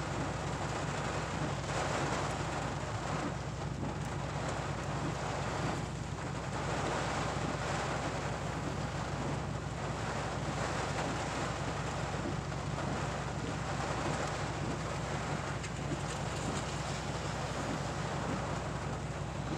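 Thunderstorm rain and wind beating on a pickup truck, heard from inside the cab as a steady, even wash of noise over a low hum.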